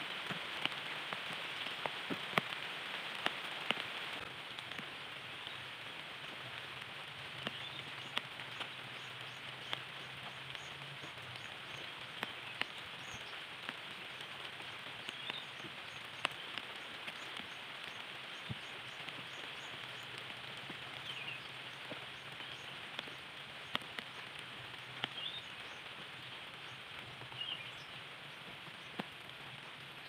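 Light rain pattering on foliage: a steady hiss with scattered sharp drop ticks. Faint short bird chirps come now and then.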